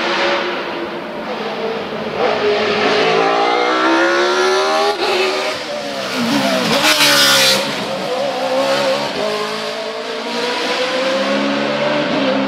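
Racing Judd V8 of a Mercedes 190 hillclimb car at high revs, its pitch climbing through the gears and dropping sharply between them. There is a short loud rush of noise about seven seconds in.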